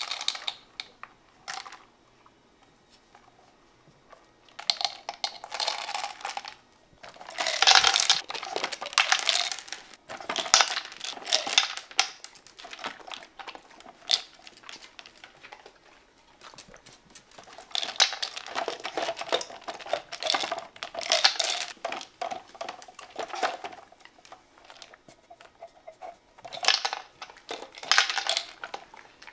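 A corgi crunching dry kibble in several bursts with short pauses between them, along with clicking and rattling from the plastic tubes of the puzzle feeder it is nosing for food.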